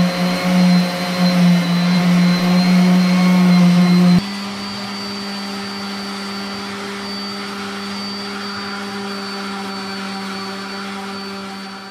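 Electric random orbital sander running steadily against flaking paint and fiberglass, a constant motor whine with a hum under it. About four seconds in, it drops in loudness and its pitch steps up slightly, then holds steady.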